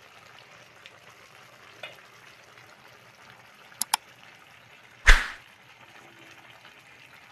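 Coconut-milk stew of string beans, squash, crab and shrimp simmering in a pan with a steady bubbling hiss. Just before four seconds in come two quick mouse clicks, and about a second later a single loud hit that fades within half a second: the sound effects of a like-and-subscribe button overlay.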